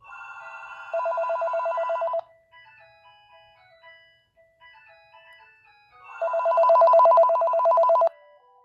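Panasonic KX-TG2620 cordless phone ringing for an incoming call: a warbling electronic ring in two loud bursts about five seconds apart, with a softer stepping tune between them.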